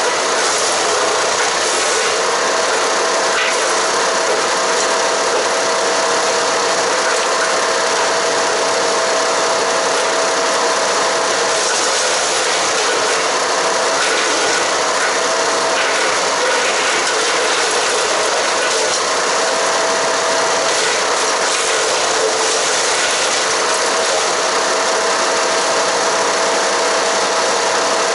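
Haige HG-15HP-GGS 15 hp gasoline wood chipper running and shredding cedar and cypress branches: a loud, steady grinding noise, with a thin whine that drops out and comes back several times.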